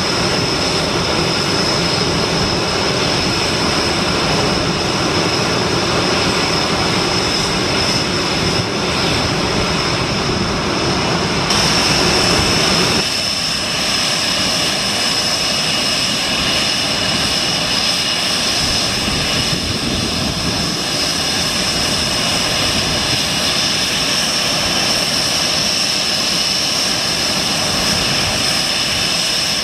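Panavia Tornado's twin RB199 turbofans running while the jet stands on the ground: a steady jet roar with a piercing high whine. About 12 seconds in the low rumble drops away and the high whine gets stronger.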